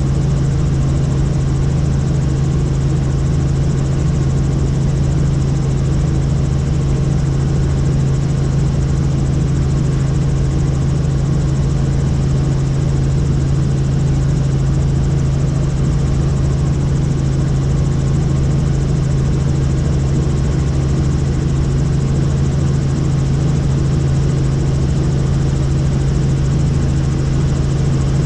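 Tour helicopter in flight: steady rotor and engine noise with a strong low drone, unchanging throughout.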